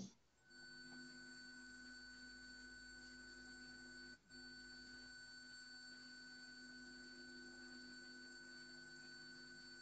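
Near silence: a faint, steady electrical hum made of a few constant tones over low hiss on the call's audio line, cutting out for a moment about four seconds in.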